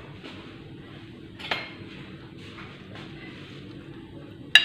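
A metal spoon clinking against dishes: a soft knock about a second and a half in, then a sharp ringing clink near the end.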